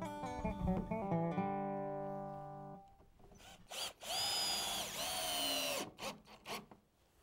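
Acoustic guitar music rings out, then a power drill runs: a short blip, then a steady run of about two seconds that spins up and winds down, followed by a few light clicks.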